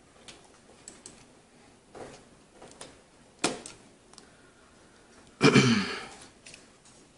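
Small plastic clicks and taps from hands fitting the internal wire connectors and shell parts of a gaming mouse, with one sharper click about three and a half seconds in. About five and a half seconds in comes the loudest sound, a short voice sound falling in pitch.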